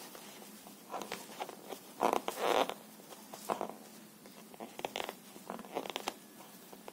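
Hands working crochet thread with a fine hook over a paper pattern sheet: short scratchy rustles as skin and thread brush and drag across the paper, in bursts, loudest about two seconds in.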